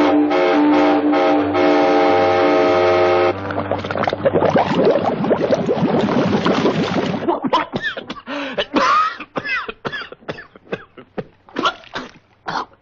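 Cartoon steam-train whistle sounding one long held chord for about three seconds, then giving way to busy, jumbled music and sound effects with sliding, whistle-like tones and scattered sharp hits.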